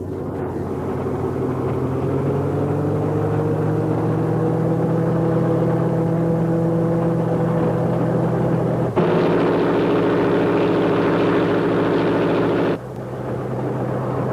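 Disney No. 2 engine locomotive running: a steady droning sound of several tones that creeps up slightly in pitch, with a louder, harsher stretch lasting about four seconds starting around nine seconds in.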